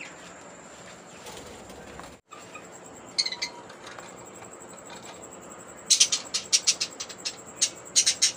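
Budgerigar in a clay nest pot giving a few short chirps about three seconds in, then a rapid run of sharp chirps over the last two seconds.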